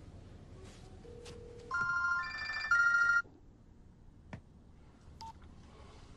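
A mobile phone ringing with an electronic melodic ringtone: two short phrases of bright stepped tones lasting about a second and a half, then it stops abruptly. Just before it comes a short low steady tone, and a faint click and brief beep follow.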